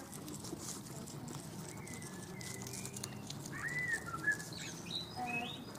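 Birds chirping: scattered short chirps and whistled calls, the loudest a little before and just after four seconds in.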